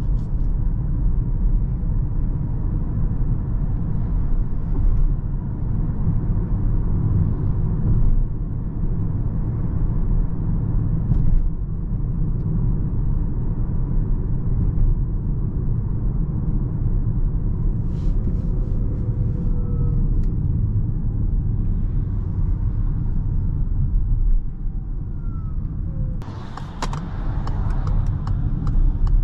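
Cabin road noise of an electric Peugeot e-2008 on the move: a steady low rumble of tyres on the road, with no engine sound. Near the end the noise turns brighter and more hissy.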